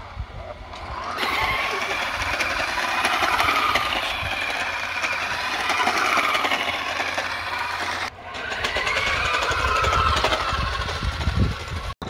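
Electric motor and gears of a 1:12 scale remote-control toy car whining as it drives over concrete paving, the pitch rising and falling with the throttle, over a rumble of the plastic tyres. The whine cuts out briefly about eight seconds in, then picks up again.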